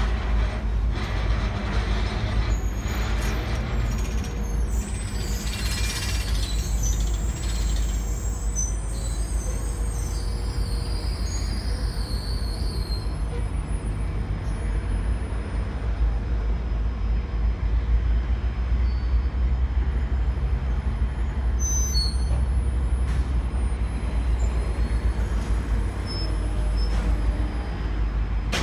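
Passenger train coaches rolling slowly past and easing to a stop, with a steady low rumble throughout. High metallic squeals from the steel wheels and brakes come in the first half.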